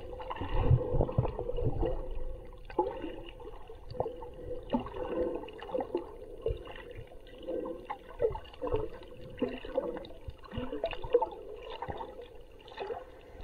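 Water heard through an underwater camera's housing: muffled gurgling and bubbling with irregular pops and clicks, over a steady hum.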